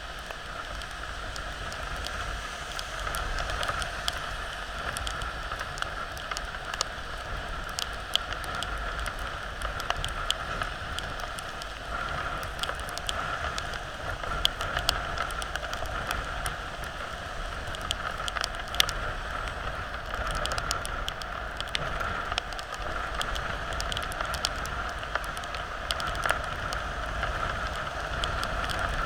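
Steady heavy rain, with frequent sharp ticks of drops striking a surface close by and a low rumble underneath.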